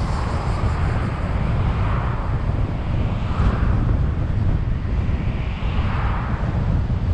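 A car driving on a road: steady low rumble of tyres and engine, with a hiss that swells and fades a few times.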